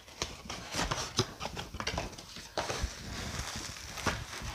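Small cardboard box being worked open by hand: irregular taps, knocks and scrapes of cardboard with light rustling.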